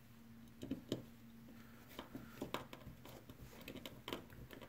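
Faint, scattered clicks and taps of a small Phillips screwdriver and the plastic parts of a computer mouse being handled as it is screwed back together.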